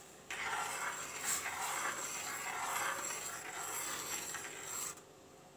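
Jaggery, coconut and chana dal filling bubbling at a boil in a steel pan while being stirred with a spoon over a high flame: a steady hiss-like bubbling with a few light scrapes. It stops suddenly near the end.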